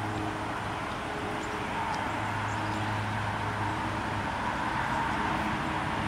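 Steady traffic noise from a nearby road, with a low steady hum underneath.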